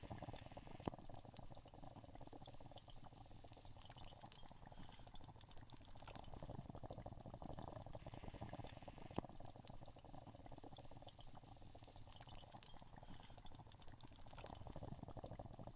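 Near silence: a faint, even crackling hiss with scattered small clicks, and two sharper clicks about a second in and about nine seconds in.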